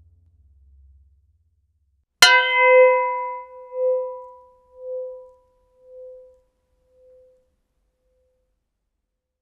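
A small gong struck once about two seconds in: a sharp clang, then a ringing tone that swells and fades about once a second as it dies away over some six seconds.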